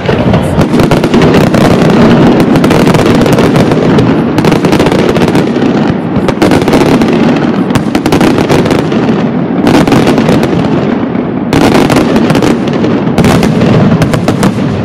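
Aerial firework shells from a Pirotecnia Caballer FX display bursting in a loud, dense barrage: a continuous rattle of crackle and bangs, with heavier clusters of reports every second or two.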